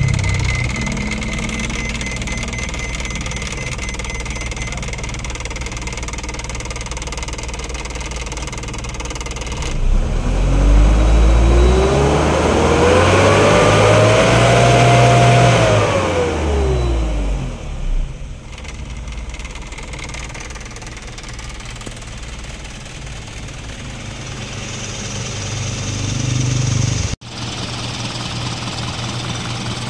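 Isuzu 4HL1 four-cylinder diesel engine running at idle, revved up about ten seconds in, held briefly, then let fall back to idle. The sound breaks off for a moment near the end.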